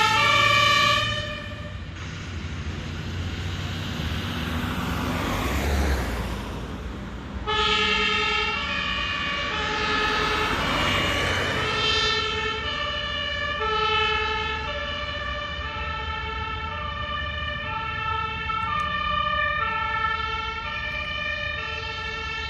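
German fire engine's two-tone siren (Martinshorn) alternating steadily between a high and a low tone. It drops in level about a second in and is nearly drowned out for a few seconds by a rush of traffic noise, then carries on alternating.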